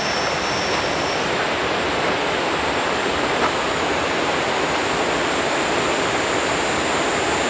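Small mountain river flowing, a steady rush of water.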